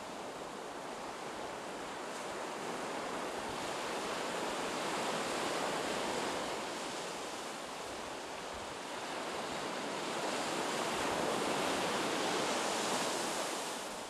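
Sea surf washing onto a sandy beach: a steady rush of breaking waves that swells and eases, loudest around five to six seconds in and again after ten seconds.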